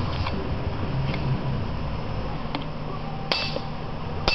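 Two hammer blows on a bearing press tool about a second apart, near the end, each with a short metallic ring, driving a tight press-fit taper roller bearing onto a Torsen differential.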